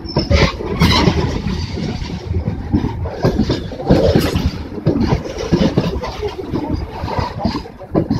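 Goods train rolling past close by: a loud, uneven rumble with a few sharp clanks, and wind buffeting the microphone.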